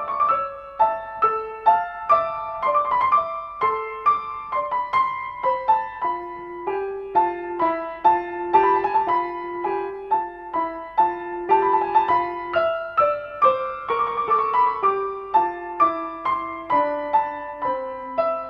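Solo piano music, a steady flow of struck notes.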